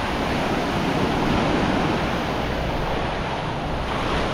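Sea waves washing onto a sandy beach, a steady rush that swells a little about a second in, with some wind rumbling on the microphone.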